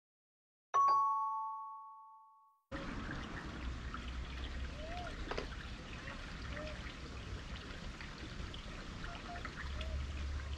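A two-tone chime rings once and dies away over about two seconds. Then the steady trickle of water in a small concrete channel comes in, with faint short calls now and then.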